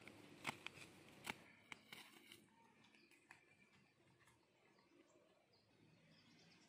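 Footsteps on dry leaf litter and twigs: a handful of sharp crackles and snaps in the first couple of seconds, one more a little later, then only faint rustling.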